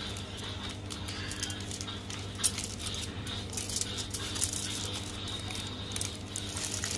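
Aluminium foil crinkling and rustling in short irregular crackles as hands roll and press it into a tight log around a pork embutido filling, over a steady low hum.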